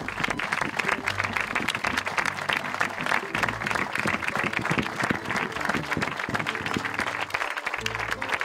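A group of people applauding: many hands clapping together in a steady, even round.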